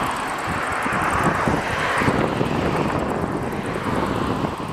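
A twin-engine Airbus airliner's jet engines at takeoff power during the takeoff roll: a steady, loud rushing noise heard from a distance, with wind buffeting the microphone. It eases slightly near the end.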